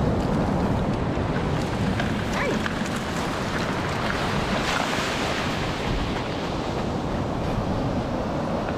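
Ocean surf washing over a shallow beach in a steady hiss, swelling as a wave rushes in about halfway through, with wind rumbling on the microphone.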